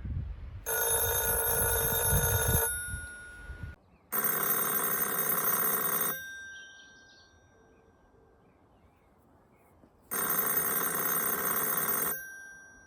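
Ringing of the Opis 60s and Opis PushMeFon mobile telephones' bells. One phone rings once for about two seconds. Then a phone with a different ring tone rings twice, each ring about two seconds long with a four-second pause between. A low rumble runs under the first ring.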